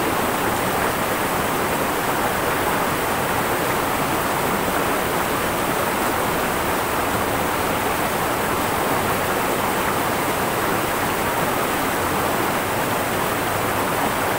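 River current rushing steadily past a rocky bank, a constant even wash of water noise.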